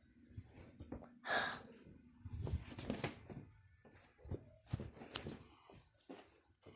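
Faint scattered clicks, taps and rustles from a handheld phone being moved about, with a breathy puff about a second in.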